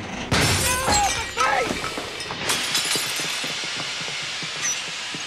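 Cappuccino machine exploding: several sharp bangs and shattering crockery and glass in the first couple of seconds, with a person crying out, then hissing and scattered debris clattering as it settles.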